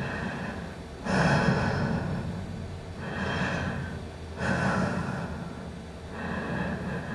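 Loud, rhythmic human breathing: about five noisy breaths in and out, one every second and a half or so, each starting sharply and fading.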